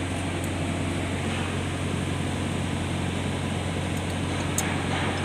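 A steady low mechanical hum over constant background noise, with a few faint clicks near the end.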